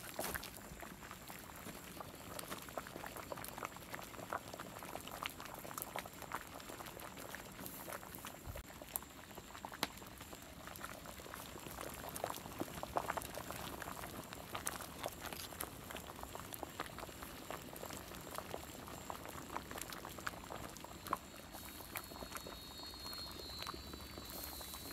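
Large pot of meat and broth at a rolling boil over an open wood fire: a dense, steady bubbling dotted with small pops.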